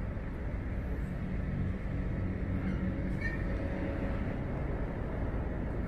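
Steady low mechanical rumble, like an engine running, holding even throughout, with a faint brief high tone about three seconds in.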